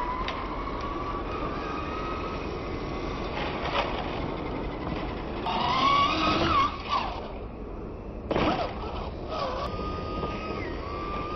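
Electric motors of R/C monster trucks whining as they speed up and slow down, over the noise of tyres on concrete. The loudest whine rises and falls about six seconds in, with another short surge a couple of seconds later.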